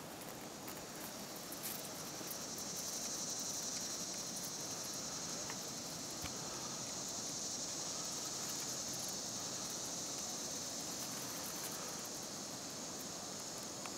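A steady, high-pitched chorus of insects that grows louder about two seconds in and eases off slightly near the end.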